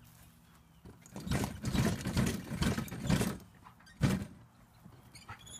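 Irregular rattling and scraping from the tipped-up plastic dump wagon as the harnessed dogs jostle it, then a single sharp knock about four seconds in.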